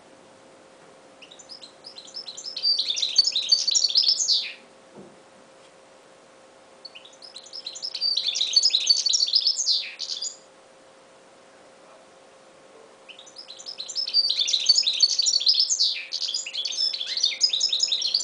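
Goldfinch mule (goldfinch × canary hybrid finch) singing: three long phrases of rapid twittering notes, a few seconds each, with short pauses between them.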